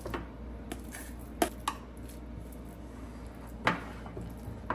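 Metal cutlery clinking and scraping against a stainless steel mixing bowl and a glass baking dish as a thick batter is scraped out and spread. There are a few sharp clinks, the loudest about a second and a half in and again near four seconds in.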